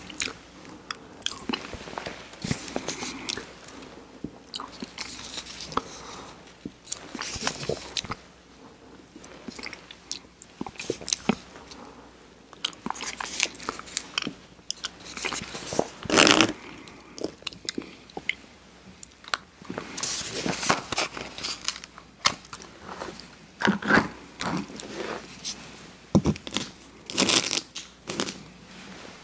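Close-miked eating sounds of McDonald's soft-serve vanilla ice cream cones: wet licks and bites into the soft serve and crunching of the wafer cone, in irregular bursts with short pauses between them.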